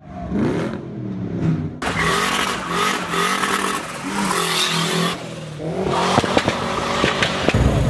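Modified Volvo 940's engine revving hard and accelerating past, its pitch rising several times, with a heavy low rumble coming in near the end.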